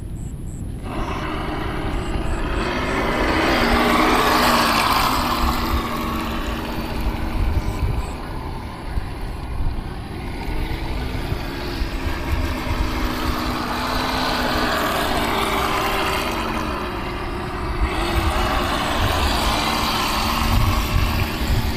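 Radio-controlled speedboat running on a pond, its small motor whining with the wash of the hull on the water. It starts about a second in and grows louder twice as the boat passes close, easing off in between.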